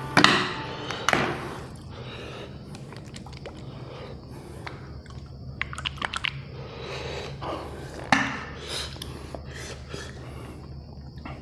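Close-miked chewing and biting of fried chicken: wet mouth sounds broken by sharp bites and crackles, loudest twice near the start and again about eight seconds in.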